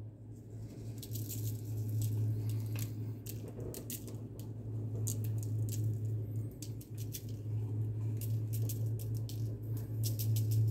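Seasoning shaker shaken over a raw bacon weave, the dry rub rattling in the bottle and sprinkling out in quick, irregular ticks that start about a second in, over a steady low hum.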